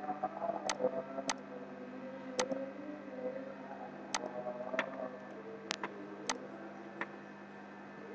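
Computer mouse clicking: about eight sharp, separate clicks at irregular intervals, over a low steady hum.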